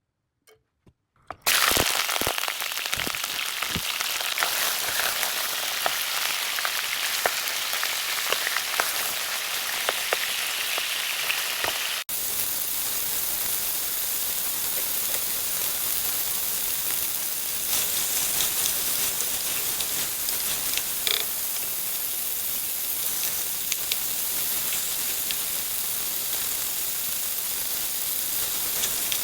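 Food frying in hot oil: a steady sizzle with scattered crackles and pops, starting suddenly a little over a second in.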